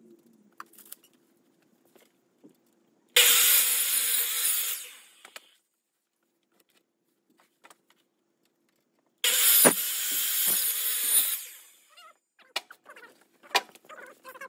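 Power miter saw cutting through wooden boards twice, about six seconds apart. Each cut starts suddenly, runs for a second or two, then fades as the blade winds down, with faint clicks and knocks between the cuts.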